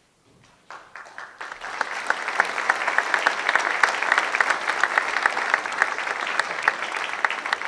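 Audience applauding: the clapping begins about a second in, swells within a couple of seconds and then holds steady.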